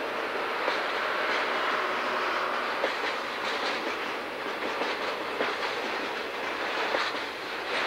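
Freight train cars rolling past at close range: steady rolling noise of steel wheels on rail, with irregular sharp clicks as the wheels pass over rail joints.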